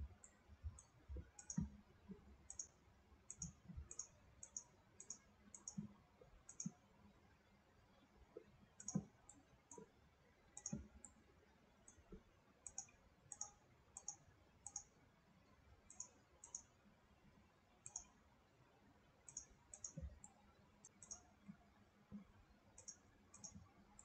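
Faint computer mouse clicks, irregular and often two close together, as surfaces are picked one after another.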